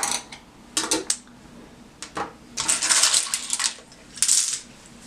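Freshly washed plastic keycaps clattering together as they are handled in batches, in four short bursts of rattling, the third one longest.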